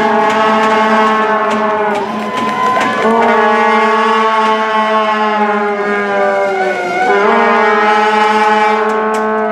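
Arena goal horn sounding in long held blasts, a deep steady note with short breaks between blasts, signalling a goal.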